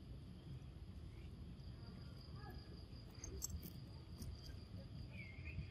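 Faint outdoor ambience at dusk: insects keep up a steady high trill over a low rumble, with a few soft clicks near the middle.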